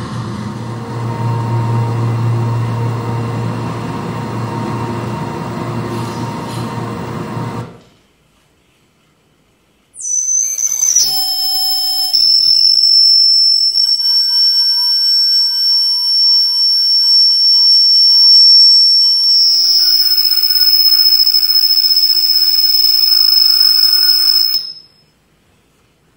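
Live electronic noise music played on modified hard drives and electronics. A dense low rumbling noise cuts off suddenly about eight seconds in. After two seconds of silence, a loud high-pitched tone comes in with a few seconds of glitchy stepping tones, then holds steady until it cuts off near the end.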